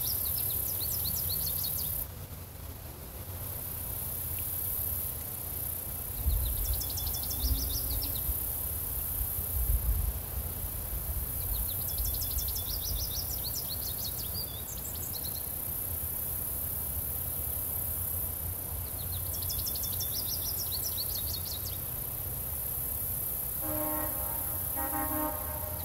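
Woodland ambience: a bird repeats a short, rapid song phrase every few seconds over a steady high hiss of insects, with a low rumble of breeze that gusts a few seconds in. Near the end a horn sounds twice, briefly.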